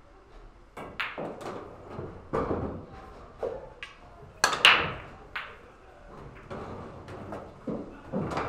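Pool break shot: a loud crack about four and a half seconds in as the cue ball strikes the racked balls, followed by a quick scatter of balls clicking against each other and the cushions. Several sharper clicks and knocks come in the few seconds before it.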